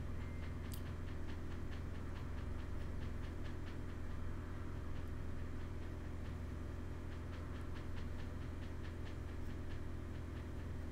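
Steady low electrical hum, with runs of quick, light clicks several times a second.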